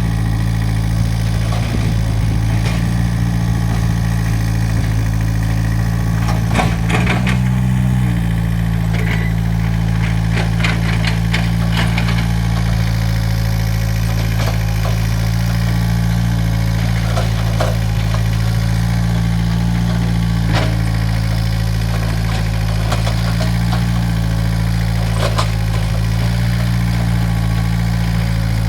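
Excavator's diesel engine running steadily under work, its note briefly shifting about seven seconds in, with scattered clanks and knocks from the bucket and arm as it digs.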